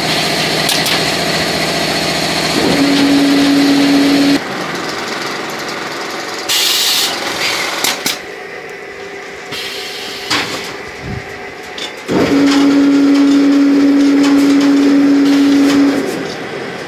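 Electric bag-closing sewing machine on a bagging line running twice with a loud steady hum, stitching shut woven seed sacks: briefly a few seconds in, then for nearly four seconds near the end. Between the two runs, conveyor and machinery noise continues, with a short hiss partway through.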